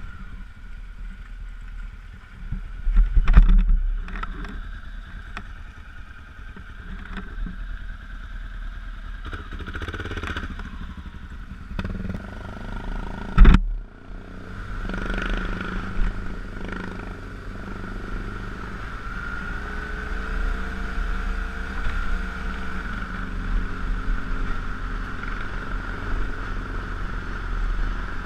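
BMW GS dual-sport motorcycle running at low road speed on dirt and gravel, heard from the bike itself as a steady engine note with wind and road noise. There is a loud knocking jolt about three seconds in and a sharp thump about halfway through.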